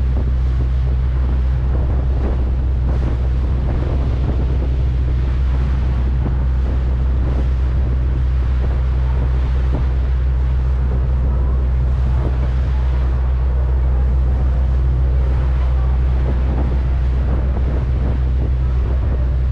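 Steady low drone of a boat's engine under way, with wind on the microphone and the wash of water.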